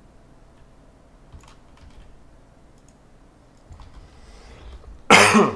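A few quiet computer keyboard and mouse clicks while a list is selected and copied into a spreadsheet. About five seconds in, a man makes a short, loud throat noise with a falling pitch.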